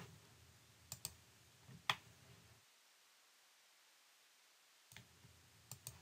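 Faint computer mouse-button clicks: a quick pair about a second in, another just before two seconds, then a stretch of dead silence, and a few more clicks near the end.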